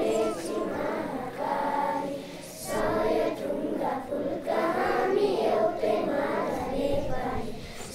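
A group of children singing together in unison, with a short pause about two and a half seconds in.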